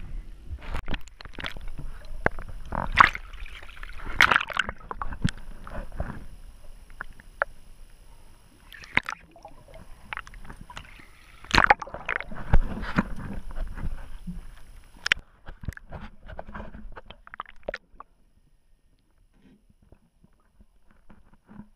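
Seawater sloshing and splashing around a camera as it goes into the sea, with gurgling and sharp slaps of water. About eighteen seconds in the noise drops suddenly to a faint hush, the camera fully underwater.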